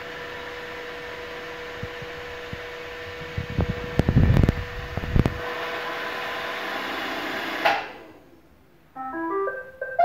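iRobot Roomba 675 robot vacuum running with a steady whir and hum, and a few heavy knocks partway through as it bumps onto its charging dock. Its motors cut off near the end, and a short series of electronic tones follows.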